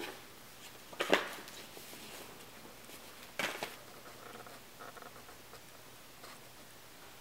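Paper envelopes rustling as a small stack of mail is shuffled through by hand, with two sharper paper rustles, about a second in and again about three and a half seconds in.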